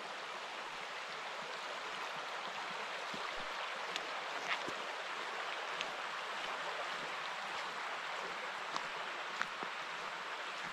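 A small creek flowing over a gravel bed, a steady rushing of water. A few light clicks stand out briefly, about four seconds in and again near the end.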